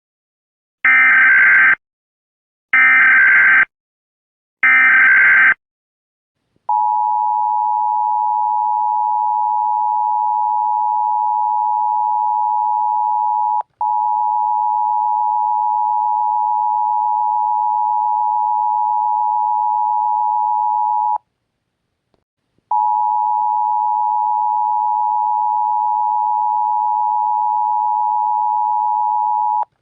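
Emergency Alert System SAME header: three short bursts of screeching data tones, each about a second long. Then the EAS attention signal, a steady two-note tone near 1 kHz, held for about fourteen seconds with a tiny break in the middle. After a second and a half of silence the tone starts again.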